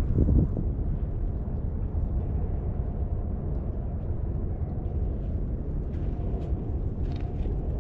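Wind buffeting the microphone: a steady low rumble, with a louder gust just after the start.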